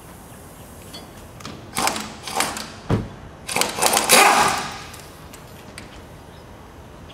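Short bursts of a cordless power driver with a socket spinning out the blade-clamp bolts on a hydraulic shear, with a sharp knock about three seconds in. The longest and loudest burst comes between about three and a half and four and a half seconds in.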